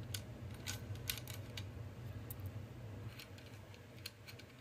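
Small, sharp clicks and light handling noise from fingers working the parts of a Floyd Rose FRX guitar bridge, a dozen or so irregular ticks, over a steady low hum.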